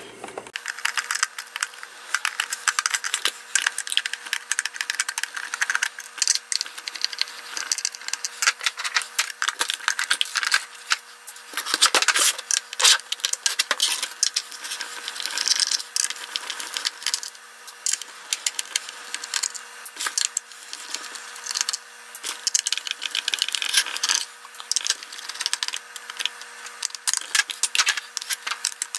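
Sped-up clatter of a Sharper Image iPulse jukebox being taken apart: a Phillips screwdriver turning out screws and the hollow plastic case being handled and rattled, a dense stream of quick clicks and knocks. A faint steady tone runs underneath.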